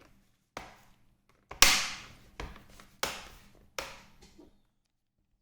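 Knocks and clatter of an HP ProBook laptop's bottom access cover being handled and set back onto the base: about six sharp knocks, the loudest about a second and a half in, stopping after about four and a half seconds.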